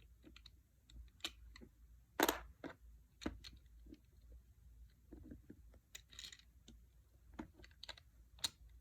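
Plastic Lego bricks clicking and tapping irregularly as pieces are handled and pressed together, with one louder click about two seconds in.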